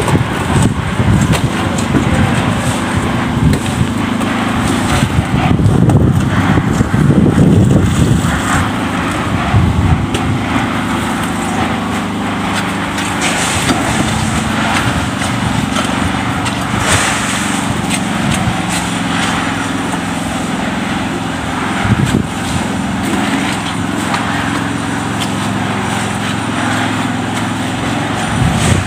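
An engine running steadily through the whole stretch, with scattered knocks and clatter over it.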